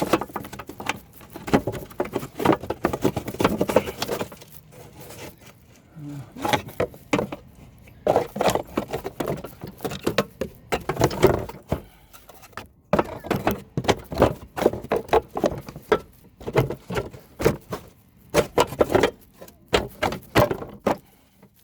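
Parts of a lawn mower's self-propel drive being handled and fitted back into place: many irregular clicks, knocks and rattles of metal and plastic.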